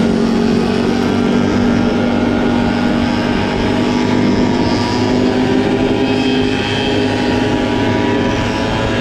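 Two-stroke Honda Dio scooter engine running steadily at cruising speed, with wind rushing over the microphone.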